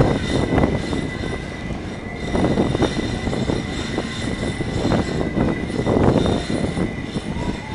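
Passenger train running along the track, heard from on board: a continuous rumble of wheels on rail with irregular knocks and clatter, and a faint steady high whine.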